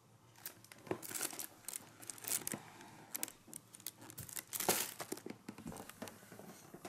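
Clear plastic wrapping on a box of firecrackers crinkling as it is handled, in a run of sharp, irregular crackles, loudest about two-thirds of the way through.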